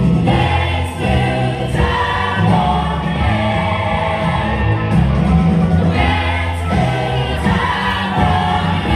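Recorded song with singing, playing loudly over a sound system, with a steady heavy bass.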